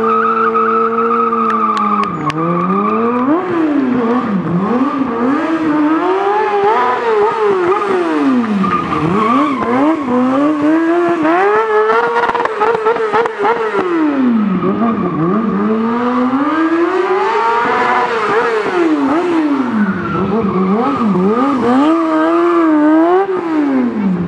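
Stunt motorcycle's engine held at steady revs for about two seconds, then revved hard up and down over and over, each rise and fall taking one to two seconds.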